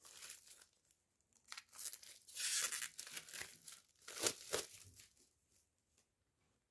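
Plastic shrink-wrap being torn open and crinkled off a comic book, with the longest rip about two and a half seconds in and a few short crackles of plastic around it.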